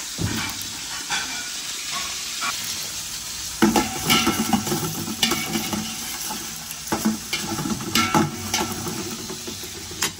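Chopped garlic sizzling in hot oil in a large stainless-steel stockpot as it is sautéed. A stirring utensil scrapes and knocks against the pot now and then, loudest about four seconds in.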